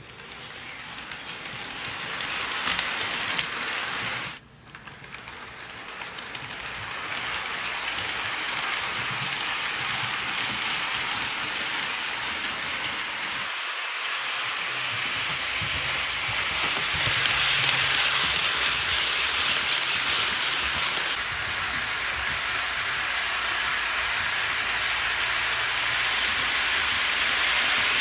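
HO scale model freight train running on its track: a steady hissing rumble of wheels rolling on the rails with a low motor hum. It swells as the train nears and breaks off abruptly twice before picking up again.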